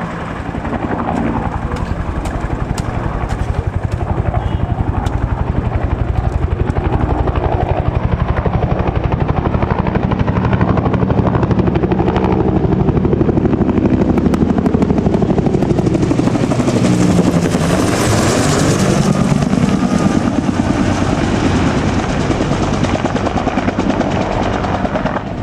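Helicopter flying close by, its rotor blades giving a fast, even chop over the turbine noise, growing louder and peaking about two-thirds of the way in as it passes overhead.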